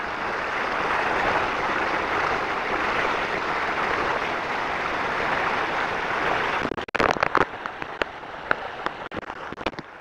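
Steady rush of wind and water noise on the microphone of a camera on a tube being towed fast across a lake. About two-thirds of the way through, the rush breaks into a run of sharp, irregular crackles and pops on the microphone.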